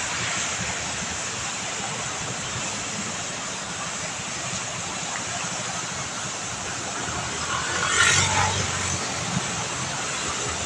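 Fountain water splashing and falling in a steady rush, with a brief louder sound about eight seconds in.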